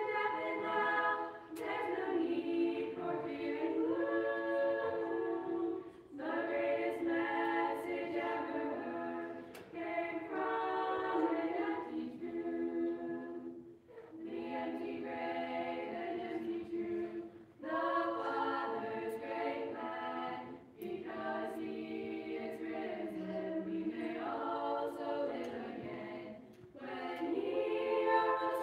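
A mixed choir of boys and girls singing a cappella in short phrases, with brief breaks for breath between them.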